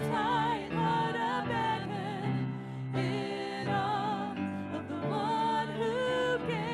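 Two women's voices singing a worship song with vibrato, sometimes in two parts, over sustained electric keyboard chords.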